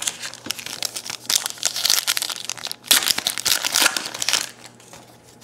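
Foil trading-card pack wrapper crinkling as it is torn open and pulled off the stack of cards, in two long spells of crackly rustling that die away about four and a half seconds in.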